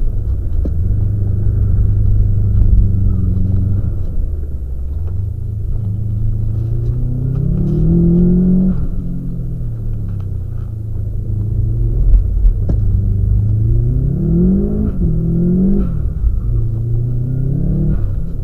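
Subaru boxer engine pulling hard on a wet track: the revs climb steeply twice, around the middle and again later, each time falling back, over a constant low rumble of road and wind.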